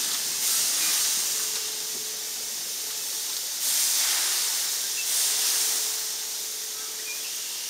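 Steam hissing from a 15-inch-scale live steam locomotive as it creeps slowly along. The hiss swells and eases several times.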